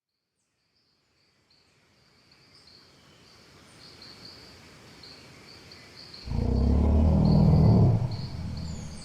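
Dinosaur sound effect presented as a Tyrannosaurus rex call: a loud, deep growl starts about six seconds in and lasts a couple of seconds. Before it, a faint nature background with a steady high chirping fades in.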